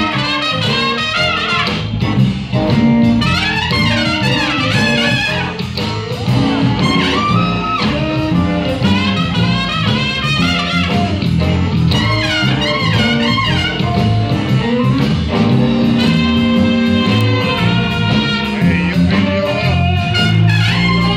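Live band playing jazzy blues, a trumpet carrying the lead line over guitar and drums.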